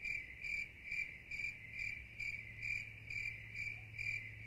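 Cricket chirping sound effect: short, even chirps about twice a second, the cartoon cue for silence in a suddenly empty room.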